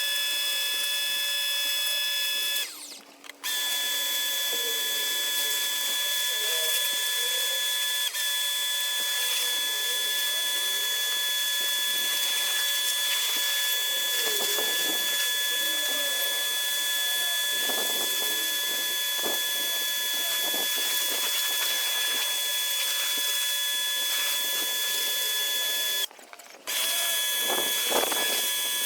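Bosch electric pressure washer running steadily with a motor whine and hissing water spray, cutting out briefly twice.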